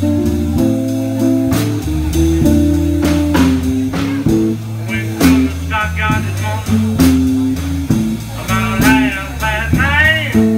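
A live blues trio, two electric guitars and a drum kit, playing a blues groove. A high, wavering lead line comes in about halfway through and again near the end.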